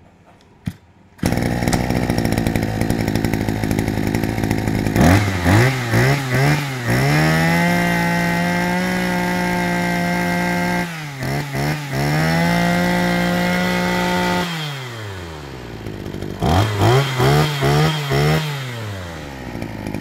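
Maruyama BIGM BC26T brush-cutter two-stroke engine starting about a second in and idling, then revved in quick throttle blips and held at high speed, dropping back to idle near three-quarters of the way through, with another run of blips near the end.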